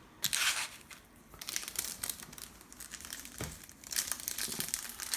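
Plastic wrapping on trading-card packaging crinkling and tearing as it is opened, in irregular crackly bursts with a louder stretch near the end.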